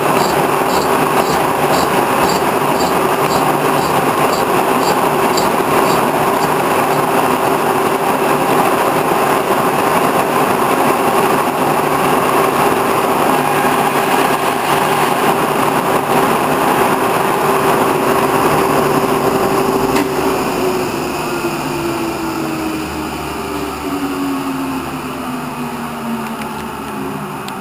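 Horizontal boring mill running, its spinning boring bar facing the end of a shaft with a steady machine whine and a light tick about twice a second that stops about six seconds in. About 20 s in, the machine is switched off and winds down, its pitch falling and its sound fading as the spindle coasts to a stop near the end.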